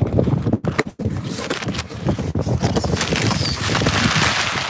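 Cardboard shipping box being pulled open and crumpled brown packing paper rustling and crackling as hands dig through it, growing denser in the second half.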